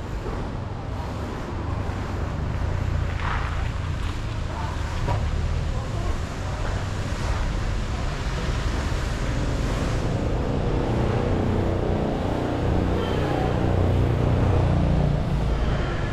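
Steady vehicle and road noise with a strong low rumble, growing a little louder over the second half.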